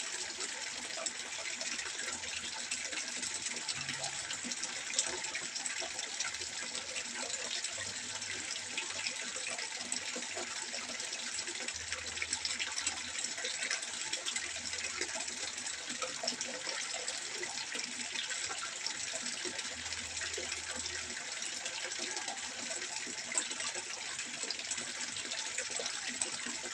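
Water trickling and splashing steadily into a fish pond, an even, continuous splashing hiss.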